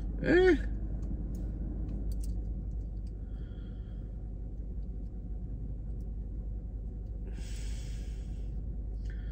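A man's short hummed "hm" about half a second in, then a low steady hum with a few faint small clicks and a breathy exhale near the end, as he works the knife's pocket-clip screws.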